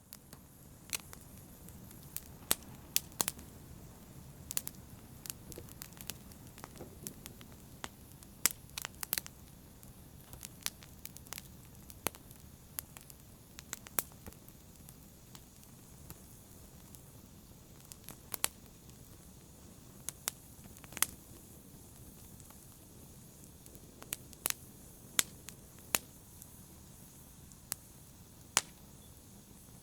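Fire in a brazier crackling: a steady low rumble of flames with irregular sharp pops and snaps, a few of them much louder than the rest.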